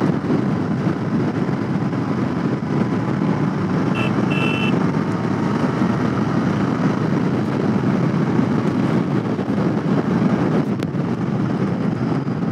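Heavy wind blast on a helmet-mounted GoPro's microphone while riding, a steady rush with the Royal Enfield Continental GT 650's parallel-twin engine and road noise underneath. A short high tone sounds twice about four seconds in.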